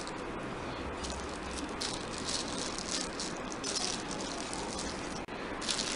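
Rustling and crinkling of a cloth wrap and a plastic cover being untied and pulled off the mouth of a ceramic pickle jar, in several short spells.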